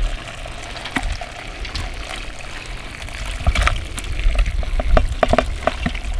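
Hot boil water pouring from a stainless steel stockpot into a plastic colander, then boiled crawfish, corn cobs and potatoes sliding in, with a quick run of knocks and thuds from about three and a half seconds in.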